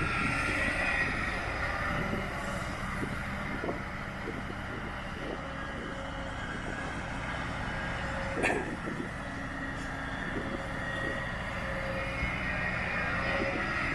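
Kobelco SK200 excavator's diesel engine running under load with a steady whine as the machine swings back from the truck and digs. A single sharp knock stands out about eight and a half seconds in.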